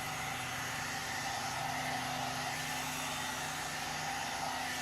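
One-step hair dryer and styler (hot air brush) running steadily, blowing air with a constant motor hum.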